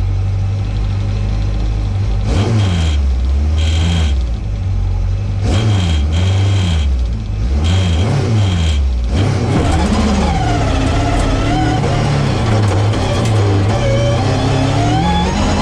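Mk2 Ford Escort's 2.5-litre Millington four-cylinder race engine idling, then blipped sharply about five times, each rev rising and dropping back quickly. From about nine seconds in it runs continuously, the revs rising and falling and climbing near the end.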